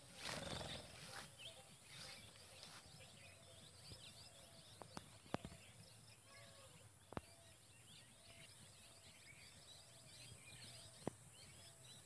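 Near silence: faint outdoor ambience with a steady high-pitched drone and many scattered small chirps. A short rustle of noise comes in the first second, and a few sharp clicks come in the middle and near the end.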